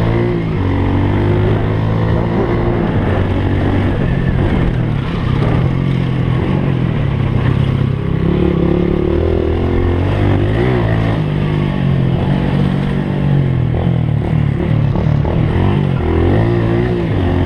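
Motorcycle engine running under way, its pitch rising and falling as the throttle is opened and eased off, with a steady rush of wind noise throughout.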